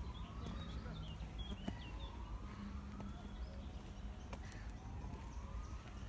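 A distant siren with about three slow sweeps, each rising in pitch and then starting over. Small birds chirp over a low, steady rumble.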